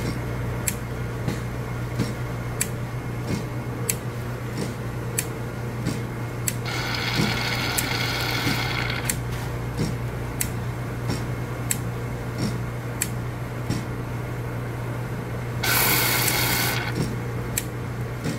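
Slurpee machine barrel refilling: a steady machine hum with a regular click about one and a half times a second. Two bursts of hiss, each about two seconds long, come about seven seconds in and near the end, as air is vented from the barrel so it can fill.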